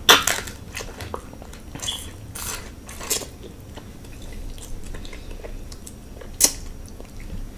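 A person chewing and biting into seafood-boil food close to the microphone: wet chewing with several sharp, short crunches or clicks, the strongest near the end.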